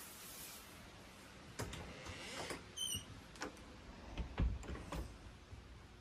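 An interior door being handled: a run of soft knocks and clicks, with a brief high squeak about three seconds in.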